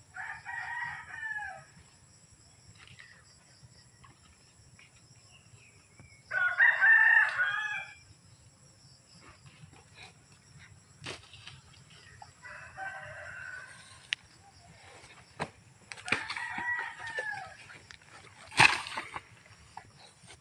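Rooster crowing four times, each crow lasting about a second and a half, the second crow the loudest, with a sharp knock near the end.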